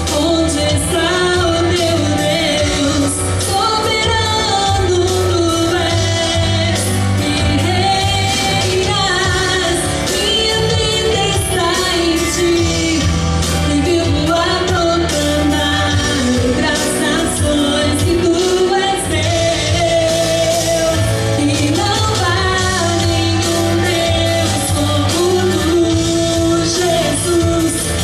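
A woman singing a gospel praise song into a microphone over loud accompaniment, with a held, bending melody above steady bass notes and drums.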